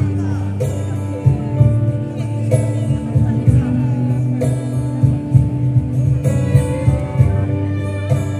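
Live band music through loudspeakers: a steady bass line and a drum beat about every 0.6 s, with guitar and a melody over it.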